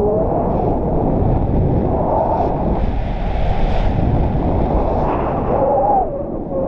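Wind rushing over the camera's microphone during a paraglider flight: a loud, steady buffeting rumble that dips briefly near the end.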